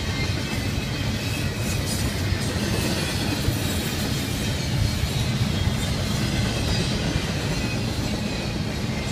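Double-stack intermodal freight train rolling past: a steady rumble of container well cars' steel wheels running on the rails.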